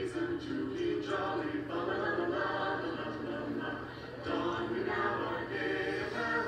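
A choir singing a slow melody, several voices together.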